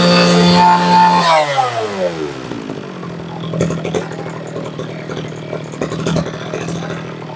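Kawasaki two-stroke brush cutter engine running at high revs; about a second in the throttle is let off and the revs fall away over a second or so, then it runs on at a low steady speed with light clattering.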